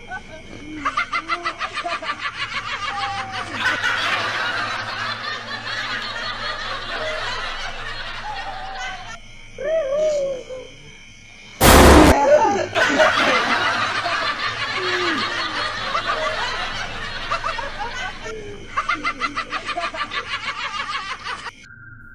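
Hard laughter in fast repeated pulses, on and off throughout, with a sudden very loud bang about halfway through.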